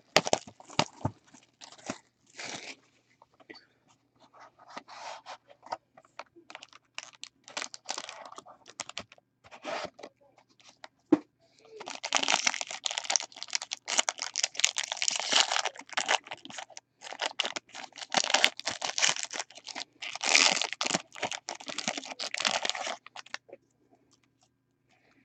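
Card box handled with scattered taps and rustles. About twelve seconds in, a shiny foil trading-card pack is torn open and its wrapper crinkles in dense bursts for about ten seconds, then stops near the end.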